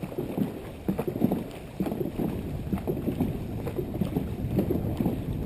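Dragon boat paddles dipping and splashing in quick, uneven strokes as the crew races, with water rushing past the hull and wind buffeting the microphone.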